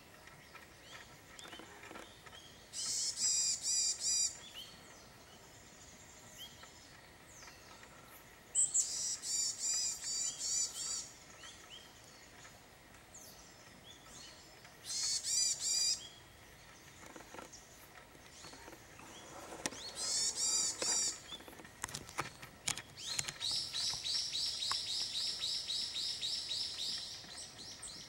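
Iriomote tit singing: about five bouts of high, quickly repeated notes, each a second or two long, the last a longer run of about five seconds near the end.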